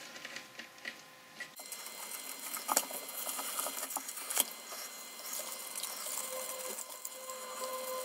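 Light clicks and small metallic rattles from handling and oiling the gears and shafts of a Boxford lathe apron, with a couple of sharper clicks midway, over a faint steady tone.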